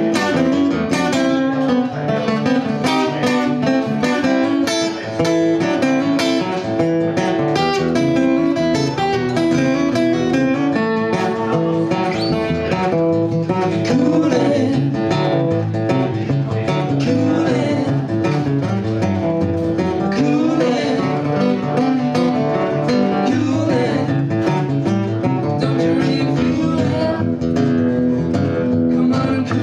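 Two acoustic guitars strummed and picked together in a live duo performance, with singing in parts.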